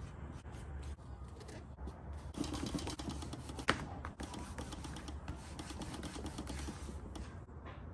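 A cloth rubbing and buffing a leather wallet by hand: fast, scratchy friction strokes that grow denser after about two and a half seconds, with one sharp click about three and a half seconds in.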